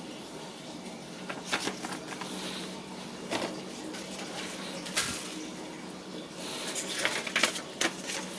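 Hands handling the humidifier's box contents and packaging: scattered clicks, taps and rustles, becoming a quicker run of clicks near the end, over a steady low hum.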